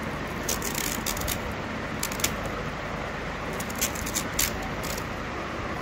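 A small knife cutting and scraping kernels off a fresh corn cob into a steel bowl: irregular crisp clicks and scrapes, a few a second at most, over a steady background noise.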